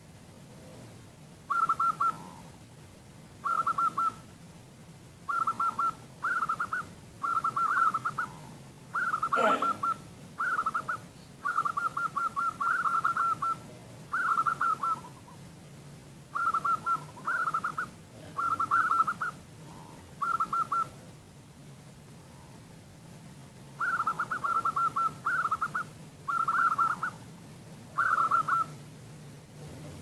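Female zebra dove (perkutut) calling: short trilled coos repeated every second or two, with a pause of a few seconds past the middle. The call is the lure used to set male perkutut singing. A brief knock comes about nine seconds in.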